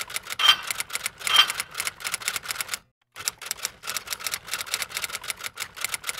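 Rapid mechanical clicking, many sharp clicks a second, broken by a short silence about three seconds in.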